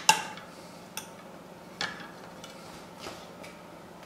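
A serving spoon clinking lightly against a pot and a plate a few times while rice is spooned out. The first clink, at the start, rings briefly, and softer taps follow about one and two seconds in.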